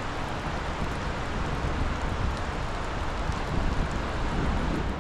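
Wind buffeting the microphone in uneven low gusts over a steady rushing hiss.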